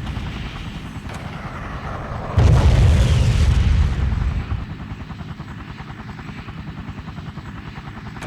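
Helicopter rotor running with a steady fast chop. A loud explosion boom comes in suddenly about two and a half seconds in, rumbles for about a second and a half, then fades back under the rotor.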